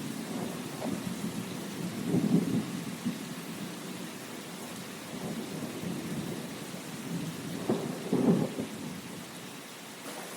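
Steady rain with low rolling rumbles that swell about two seconds in and again near the end.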